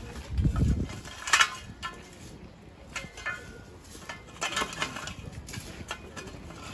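Hand shovels scraping and scooping loose soil, with a few sharp scrapes and clinks of the metal blades; a dull thump about half a second in.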